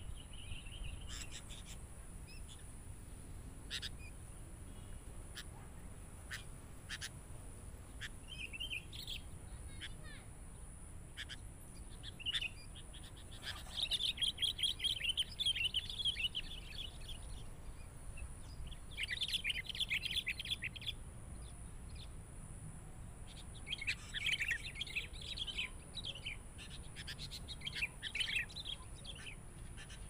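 Sooty-headed bulbuls (kutilang) calling. Short single calls are scattered through, with several bursts of fast, chattering song that start a third of the way in.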